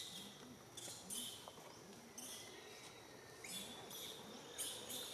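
Faint outdoor forest ambience: high-pitched chirping comes in short bursts, repeating about every second, over a soft background hiss.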